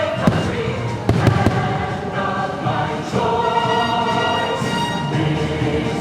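Fireworks show soundtrack with a choir singing over the music. Several fireworks bangs cut through it, one near the start and a quick cluster about a second in.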